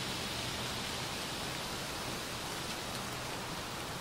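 Steady, even hiss of the ambience among the trees, with no distinct sounds standing out of it.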